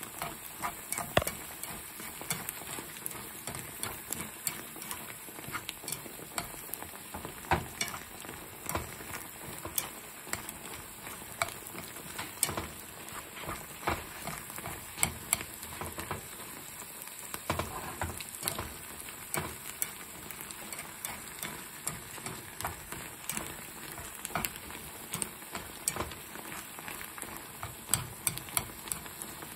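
Canned tuna and chopped bell peppers sizzling in a nonstick skillet while tongs stir and toss the mixture. Frequent, irregular clicks and scrapes of the tongs against the pan run over a steady frying hiss.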